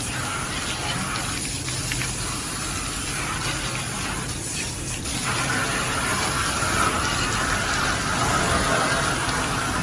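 Steady rush of water from a spray gun jetting onto an air conditioner's outdoor fan and fins, a little louder from about halfway through.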